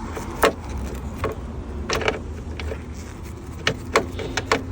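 Scattered sharp clicks and knocks of hand work on the seat belt hardware and interior trim, a few seconds apart, over a steady low hum.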